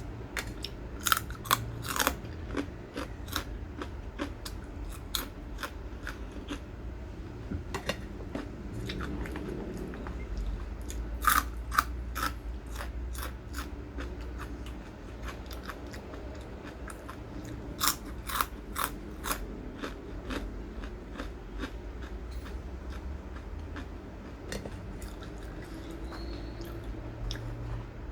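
Crisp food being bitten and chewed close to the microphone: a run of sharp, irregular crunches, thicker in a few bursts.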